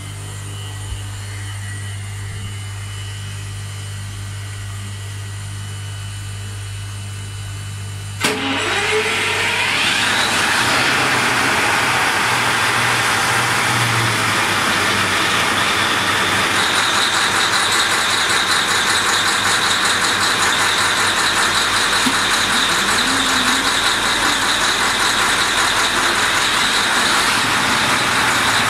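A steady low hum of engine-room machinery, then about eight seconds in an MTU 16V 2000 V16 marine diesel starts with a sharp click. It builds over about two seconds to a loud, steady run. A high steady whine joins past the middle.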